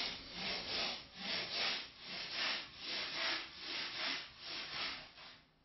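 A hand tool rubbing back and forth across the carved foam fuselage plug, in even strokes about two to three a second, stopping shortly before the end.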